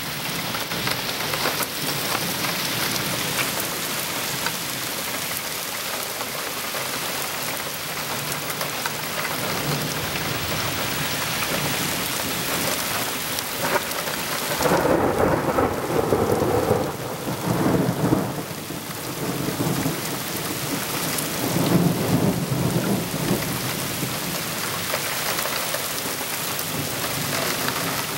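Steady rain falling in a summer thunderstorm, a constant hiss of drops. Thunder rolls in about halfway through for several seconds and rumbles again briefly a few seconds later.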